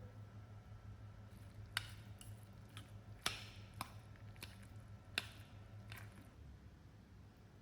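About six sharp, light taps and clicks at uneven intervals, starting about two seconds in and stopping about six seconds in, over a faint steady low hum.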